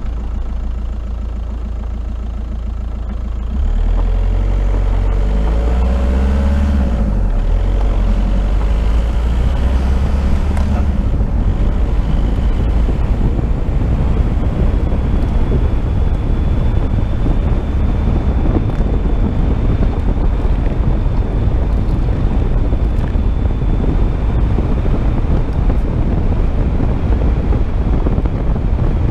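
Car driving on a gravel road. About four seconds in the engine gets louder and picks up speed, then a steady rush of tyres running over loose gravel carries on with the engine.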